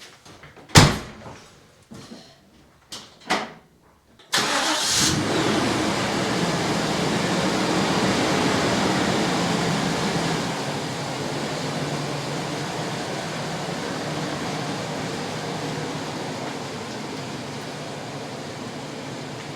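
A few knocks, then about four seconds in an engine starts with a brief burst and settles into a steady idle that slowly quietens, likely the truck's 5.7 L Vortec V8.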